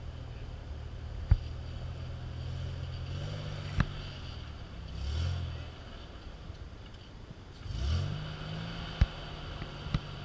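Pickup truck engine running at low revs as the truck crawls up a steep rock slope, revving up briefly about five seconds in and again about eight seconds in. A few sharp knocks stand out over the engine.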